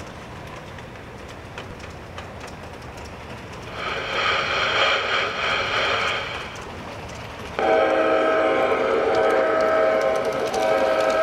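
LGB G-scale model train running on its track with faint rail clicks, then its sound unit blows a higher whistle blast about four seconds in and, from about seven and a half seconds in, a louder, lower multi-note horn that continues with short breaks.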